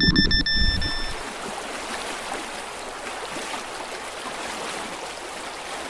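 Steady running-water sound, like a trickling stream, starting about a second in. Before it there are a few electronic beeps and low knocks.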